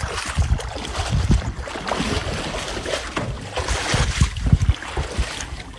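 Wind buffeting the phone's microphone in irregular gusts, a rough low rumble with hiss.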